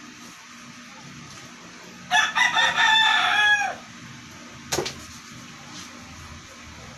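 A rooster crows once, a single pitched call of about a second and a half starting about two seconds in and ending on a falling note. A sharp click follows about a second later.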